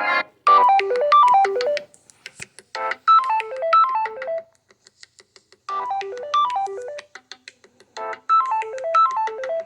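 Samsung Galaxy M30s ringtone playing: a short electronic tune of quick runs of falling notes, starting about half a second in and repeating four times with brief gaps between.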